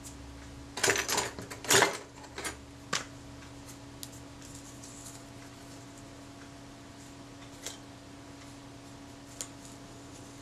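Hands handling small objects on a workbench while dabbing adhesive with a toothpick: a cluster of short rustles and clatters about a second in, then a few light scattered ticks, over a steady low hum.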